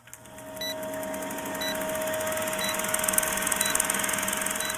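Old-film countdown leader sound effect: a film projector's rapid clatter and hiss over a steady hum, with a short high beep once a second as the numbers count down. It fades in over the first second.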